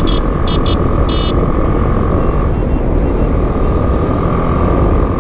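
BMW G 310 GS motorcycle being ridden at road speed: wind rushing over the microphone over the single-cylinder engine's steady running note, with a faint steady whine. Three short high chirps sound in the first second and a half.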